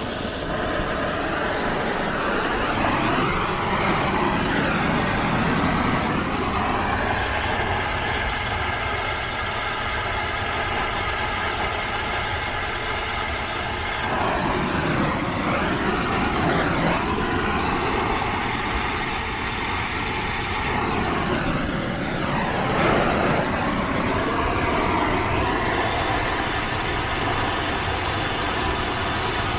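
Steady roaring hiss of a brazing torch flame, its tone sweeping down and back up several times as the flame is moved around the copper joints.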